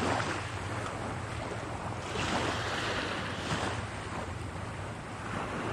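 Small waves washing against a rocky shore, with wind buffeting the microphone; the rush of water and wind swells and eases every second or two.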